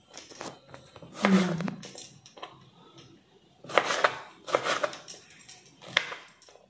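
Kitchen knife cutting tomatoes on a chopping board: a few irregular, sharp knocks of the blade against the board, with light clinks.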